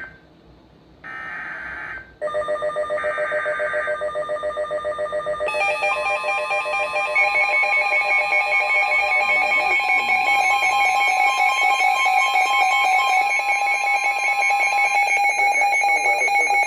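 Emergency alert signal between weather radio messages. Short buzzy data bursts come first, then a loud pulsing electronic alert tone made of several pitches at once, with more tones joining a few seconds in.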